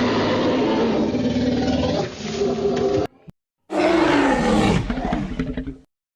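Designed Tyrannosaurus rex roar sound effects: one long roar cuts off about three seconds in. After a short gap a second roar falls in pitch and fades out.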